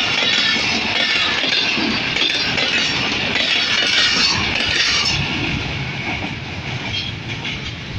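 Pakistan Railway passenger coaches passing at speed over a level crossing: steady rushing wheel noise with clickety-clack over the rails. It eases off after about five seconds as the last coaches go by.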